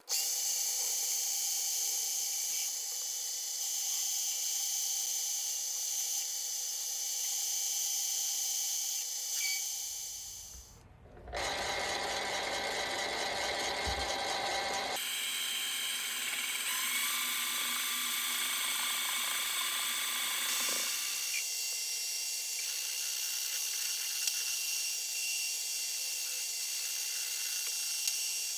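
Mini metal lathe running and cutting metal stock: a steady motor whine with a high cutting hiss. The sound dips briefly about ten seconds in, then changes abruptly a few times.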